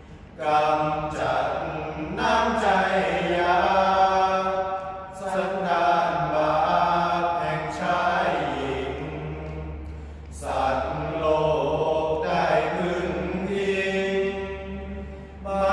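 A group of male voices chanting Sarabhanya, the melodic Thai Buddhist recitation, together. Long sung phrases of about five seconds each, with short breaks between them.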